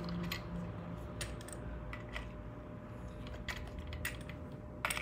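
Irregular small metallic clicks and taps from a crescent wrench and the brass fittings of a CO2 regulator as a flare nut is tightened onto it, with a sharper cluster of clicks near the end.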